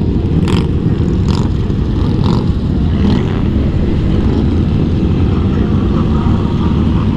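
Motorcycle cruising at freeway speed, heard from the rider's own helmet microphone: steady wind rush mixed with engine and road noise, with a few short puffs of wind hiss in the first three seconds.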